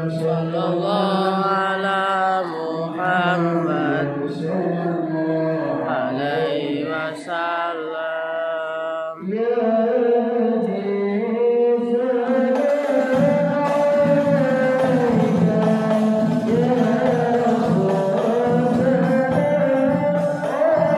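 Islamic devotional singing: an ornamented vocal line with long gliding notes, then from about halfway through a fuller sung part with a jingling, percussive accompaniment underneath.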